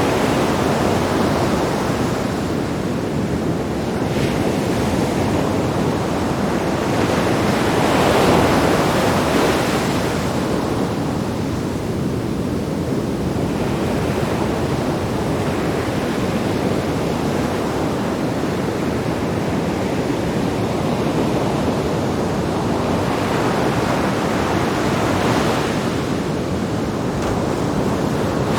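Sea waves breaking on rocks: a continuous rushing wash that swells as each wave crashes, with the biggest surges about a third of the way in and near the end.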